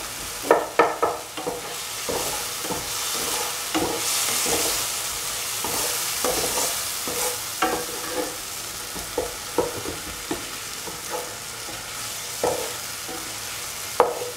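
Chopped tomatoes, shallots and garlic sizzling in hot oil in a pan while a utensil stirs and mashes them, giving irregular knocks and scrapes against the pan over a steady hiss. The tomatoes are being crushed into a paste.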